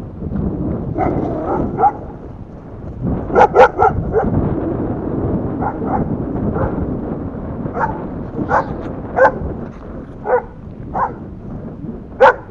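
A dog barking repeatedly: short, sharp barks every second or so, some in quick pairs, over a low rumbling background noise.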